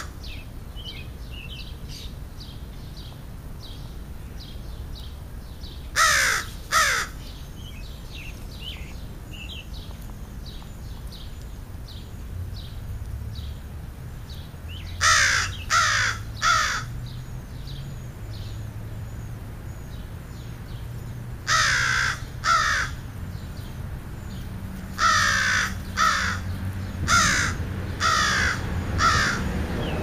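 Crows cawing in loud bursts of two or three caws, repeated several times and coming closer together near the end. Faint, high, short chirps of small birds fill the gaps between the bursts.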